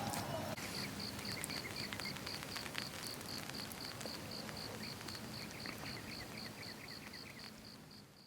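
An insect, likely a cricket, chirps in a steady high-pitched pulse about four times a second over a soft outdoor hiss. The sound fades out near the end.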